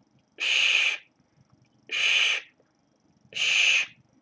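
Whispered 'shch' hiss exhaled past a harmonica held at the lips, three short hisses about one and a half seconds apart, with no reed sounding. It is the exhaled, voiceless part of a harmonica chugging rhythm, the breath going around the instrument rather than through it.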